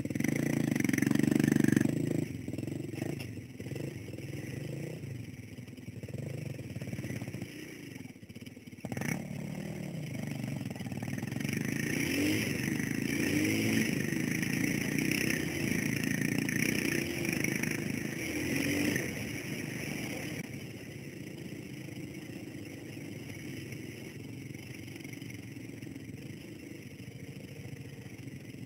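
Dirt bike engine pulling away and riding along a dirt track, loudest in the first couple of seconds, its revs rising and falling with the throttle, then running lower and steadier for the last third.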